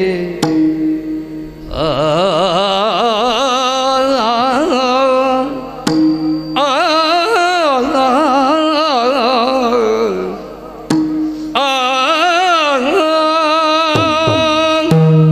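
Yakshagana bhagavata singing a Kannada verse in long, heavily ornamented phrases that waver in pitch, with a short break about two-thirds of the way through. A steady drone holds underneath and shows through the pauses, and a few single maddale drum strokes fall between phrases.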